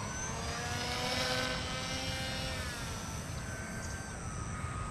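Electric motor and rear-mounted pusher propeller of a small home-built delta-shaped RC plane whining as it flies past. The pitch rises slightly, then slides down as it moves away, leaving a fainter single tone that drops near the end.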